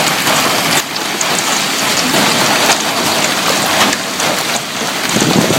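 Hail the size of peas and golf balls, with heavy rain, pelting a bus: a loud, dense, steady clatter of countless small hits.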